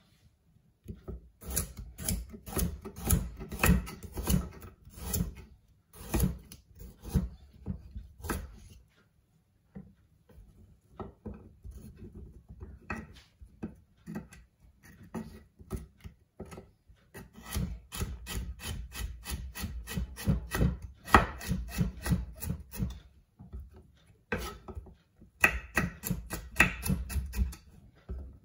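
Kitchen knife slicing a carrot on a wooden chopping board: quick repeated cuts, each ending in a knock of the blade on the wood, in runs broken by short pauses.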